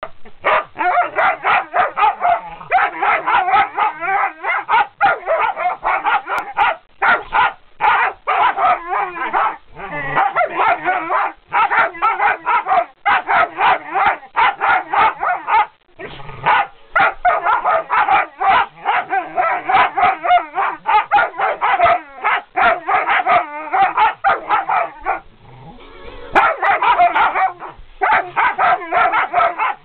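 Dog barking and yapping rapidly and almost without let-up, with a brief lull about 25 seconds in.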